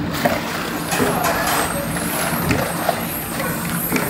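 Wooden paddles scraping and knocking against a large wok as fried chicken is tossed in sticky sauce, with irregular clicks and scrapes over a steady low hum.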